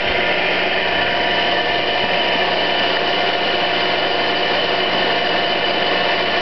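Antique spark-gap transmitter running, its electric motor and spark gap making a steady, loud mechanical sound, a dense noise with several steady whining tones held through.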